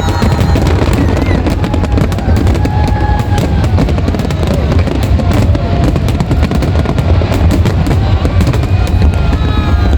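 Fireworks display: many bangs and crackles in quick succession over a continuous deep rumble, with some wavering pitched sounds mixed in.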